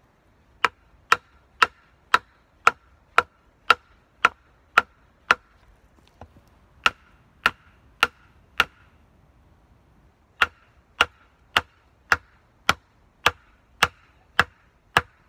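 Wooden pegs being hammered into the ground to hold a log wall: sharp knocks with a short ring, about two blows a second, in three runs with brief pauses between.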